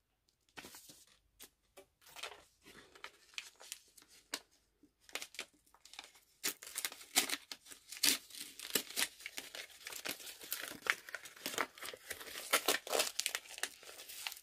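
Wrapping paper being torn and crumpled off a book by hand: scattered crinkles at first, then about six seconds in a busy stretch of tearing and crackling.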